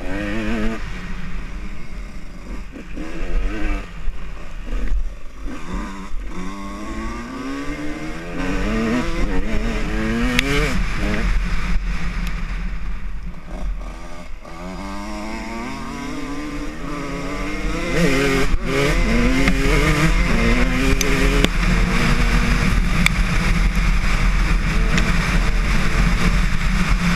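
Dirt bike engine accelerating and shifting up through the gears again and again, its pitch rising with each pull, then easing off. Low wind rumble on the microphone grows heavier in the last third as the speed picks up.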